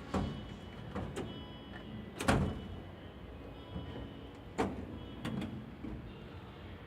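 Tool chest drawers, likely a Yukon chest, sliding and knocking shut about five times, the loudest a little over two seconds in, over background music.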